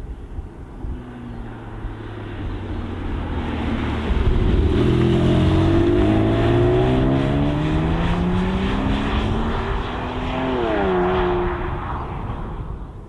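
A sports car's engine accelerating hard: its pitch climbs steadily for several seconds as it gets louder, then dips sharply near the end before the sound fades away.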